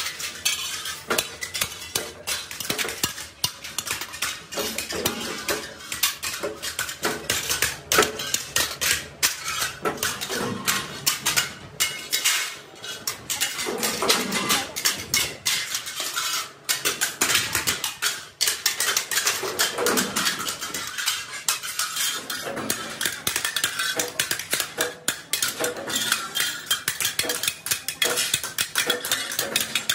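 Curved steel chaff-cutter blades clanking and clinking against one another as they are handled and stacked, a constant run of quick metal knocks with some brief ringing. Near the end a hand hammer strikes a blade laid on a steel block.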